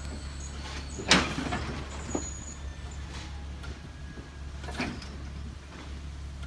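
Bare subway car trucks rolling slowly on rails, with a loud metallic clank about a second in and lighter clanks near two and five seconds, over a steady low hum.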